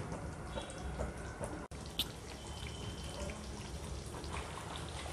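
Faint low hum with scattered small pops and drips from hot, oily chicken gravy in a kadai just taken off the flame, and one sharper click about two seconds in.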